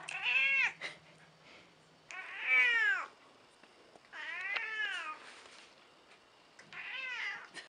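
An elderly domestic cat meowing four times, about two seconds apart. Each meow is drawn out and rises then falls in pitch.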